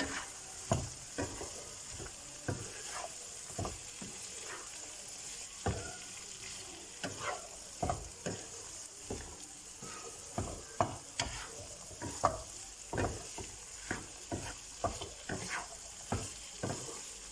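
Okra frying on high heat in an onion-tomato masala, sizzling steadily, while a utensil stirs it and knocks against the pan in irregular strokes about one or two a second.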